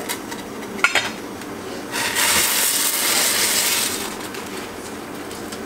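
A couple of sharp metallic clinks about a second in, then about two seconds of loud crinkling from a plastic instant-noodle packet handled over a small stainless-steel pot of boiling water.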